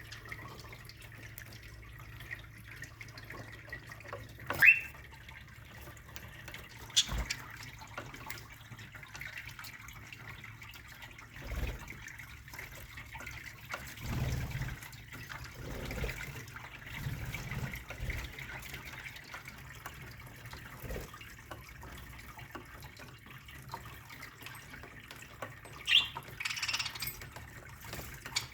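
A budgerigar flock chattering faintly and steadily, with a few sharper chirps: a loud quick rising one about five seconds in, and a cluster near the end. Several soft low thumps come in the middle.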